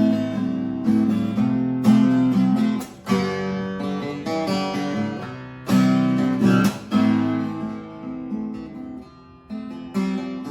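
Solo acoustic guitar playing: chords struck and left to ring, with single picked notes between them.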